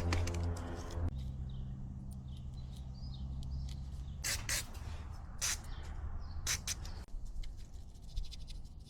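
Three short hissing spray bursts about a second apart, as a portable generator's carburetor is cleaned. Before them a steady low hum cuts off about a second in.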